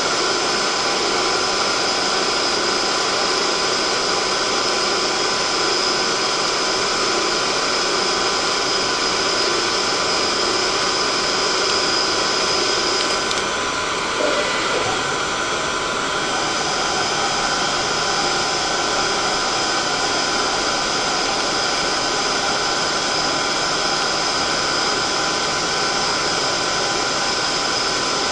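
CNC machine running, a steady hiss with a constant high whine. Around the middle the highest whine drops out for about three seconds, with a brief click, then returns.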